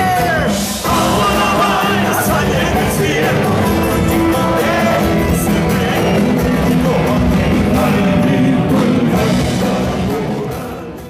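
Live band music with singing, played loud through a concert sound system; it fades out near the end.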